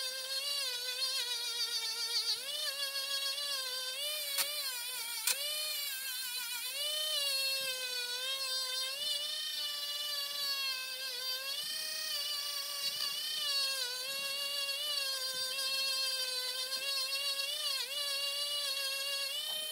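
Parkside PFBS 12 C5 cordless rotary tool spinning a felt polishing wheel against an ebonite pipe mouthpiece, buffing it with abrasive paste: a steady high whine whose pitch wavers as the wheel is pressed onto the work and eased off. Two sharp clicks about four and five seconds in.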